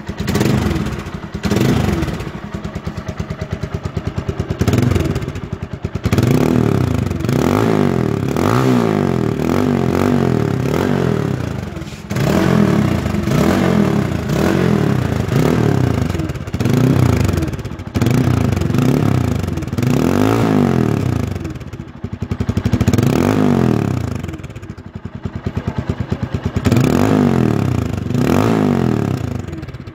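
TVS Apache RTR 180's single-cylinder four-stroke engine revved again and again through a new Akrapovic slip-on exhaust with its dB killer still fitted, the pitch rising and falling over a second or two each time.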